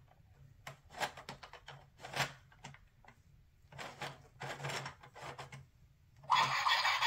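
Plastic gears on a toy sound book's panel clicking in uneven runs as they are turned by hand, followed near the end by a short hiss-like sound effect from the book's small speaker.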